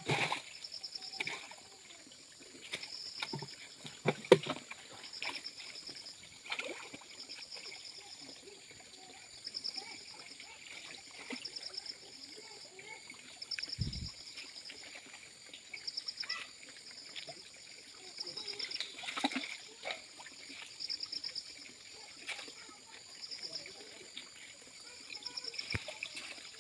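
Muddy pond water splashing and sloshing as a man wades and sweeps a scoop net through it, with sudden splashes and knocks now and then, loudest near the start. A high chirp repeats about every second and a half.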